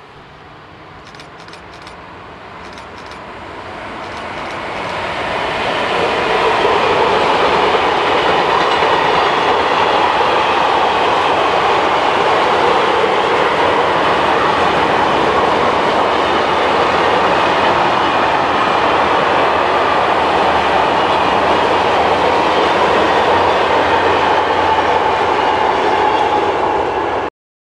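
Freight train of double-deck car-carrier wagons, hauled by an electric locomotive, approaching and then running past close by: the sound grows over the first six seconds into a steady loud rumble of wheels on rail with clickety-clack. It cuts off suddenly near the end.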